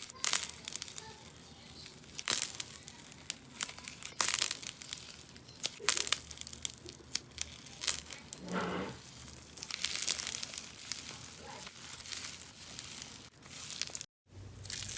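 Slime being pressed and worked by hand, crackling and popping in irregular bursts of clicks. The sound cuts out briefly near the end.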